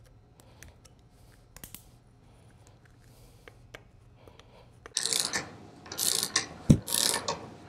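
Faint small metal clicks as a U-joint snap ring is worked into the yoke with needle-nose pliers. About five seconds in come louder scraping and rubbing bursts of a metal U-joint press tool being handled on the workbench, with one sharp knock near the end.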